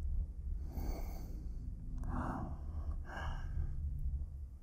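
A man breathing close to the microphone: three audible breaths about a second apart, over a steady low hum.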